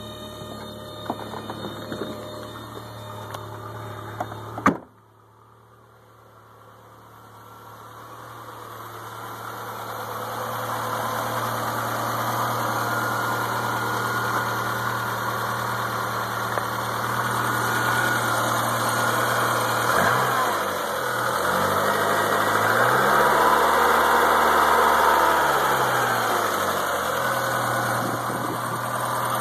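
1983 VW Rabbit GTI's 1.8-litre inline-four idling just after a cold start. About five seconds in there is one sharp thump, and the engine sound drops away and then builds back up. About two-thirds of the way through, the revs rise, hold for a couple of seconds and fall back to idle.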